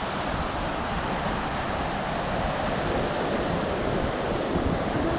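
Surf breaking and washing up a sandy beach in a steady rush, with wind buffeting the microphone in low rumbling gusts.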